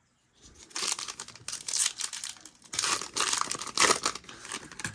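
A baseball card pack's wrapper being torn open and crinkled in the hands, a run of crackly tearing and rustling that starts just under a second in and dies away near the end.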